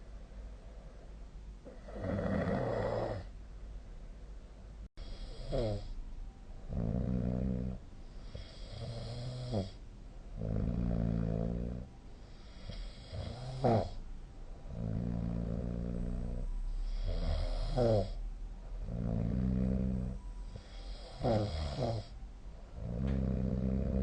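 A person snoring in sleep: a run of loud, pitched, rattling snores about every couple of seconds. Several end in a quick falling glide in pitch. There is a momentary dropout about five seconds in.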